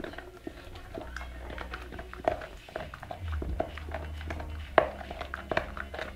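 American Pit Bull Terrier gnawing and crunching on a bone: irregular cracks and clicks, with one sharp crack about five seconds in.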